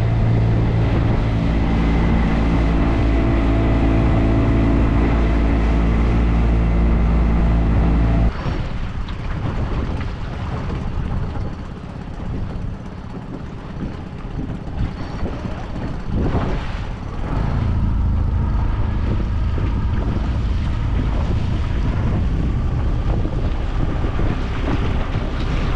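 Boat motor running steadily. About eight seconds in it cuts back suddenly, leaving wind and water noise, and it runs steadily again about two-thirds of the way through.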